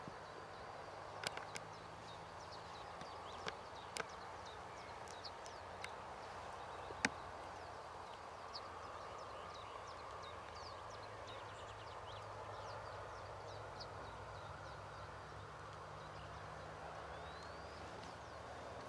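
Outdoor rural ambience: many short, faint chirps of small birds over a steady hiss and low hum. A few sharp clicks stand out in the first seven seconds, the loudest about seven seconds in.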